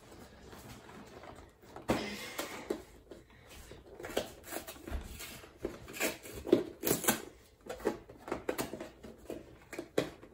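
A cardboard LEGO set box being opened by hand: its seals and flaps tearing and scraping, heard as a string of irregular crackles and sharp clicks.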